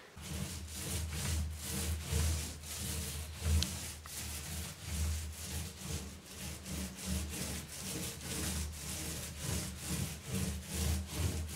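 Paint roller loaded with white paint rolling back and forth over a textured wall surface, a rhythmic rubbing swish repeated a few times a second.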